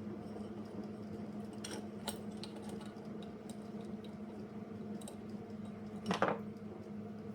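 Light clicks and clinks of small metal parts being handled, with one louder clack about six seconds in, over a steady low hum.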